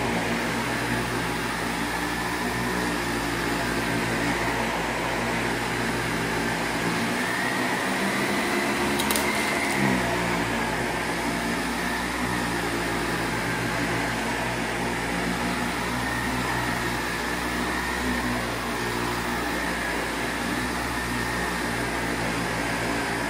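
Windsor Versamatic upright vacuum cleaner running steadily, its motor giving a high whine that wavers slightly in pitch as it is pushed over the floor. A brief click about nine seconds in.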